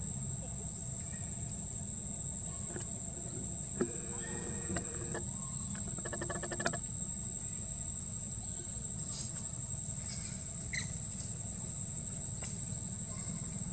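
Steady outdoor background: a low rumble under a constant high, thin insect-like whine. A few short squeaky calls and a couple of small clicks come in the middle.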